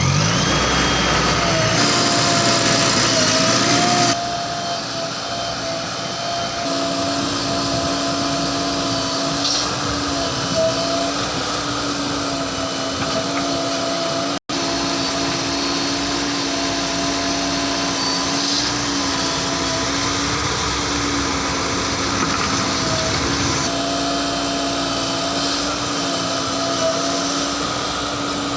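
JCB 3DX Plus backhoe loader's diesel engine running steadily under work, with a steady whine on top. It eases off slightly about four seconds in, and the sound cuts out for an instant about halfway through.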